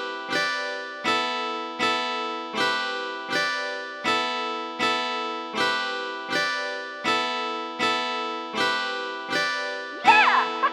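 Intro music: a strummed acoustic guitar repeating the same chord, struck about every three-quarters of a second. A voice comes in near the end.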